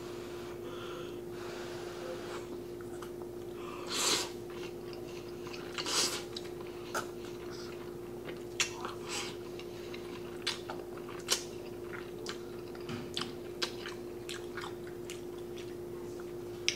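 Jajangmyeon (black bean noodles) being eaten close to the microphone: two loud slurps about four and six seconds in, then wet chewing and lip-smacking clicks.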